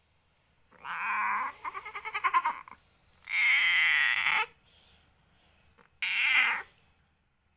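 A domestic cat, a queen in labour with her first litter, meowing loudly four times. Two calls come back to back about a second in, and the second of them quavers rapidly. A longer drawn-out meow comes around the middle and a shorter one near the end.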